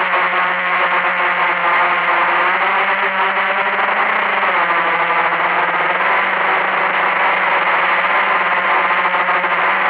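Blade 350 QX quadcopter's four electric motors and propellers running steadily in a hover, heard close up through the camera mounted on the drone: a loud, steady multi-pitched hum that shifts slightly in pitch about four to five seconds in.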